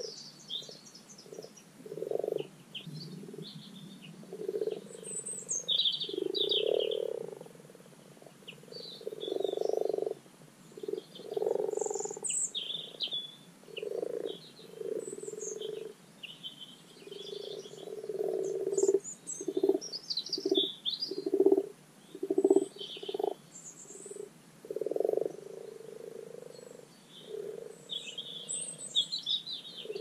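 Common frogs (Rana temporaria) croaking in a pond: repeated low croaks, some short and some about a second long, with a quick run of short croaks about two-thirds of the way through. This is the spring spawning call.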